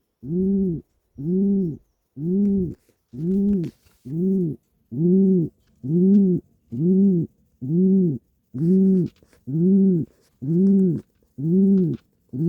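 Pigeon on its nest giving a steady series of single coos, about one a second, each note rising and then falling in pitch: the repeated cooing of a pigeon's nest call.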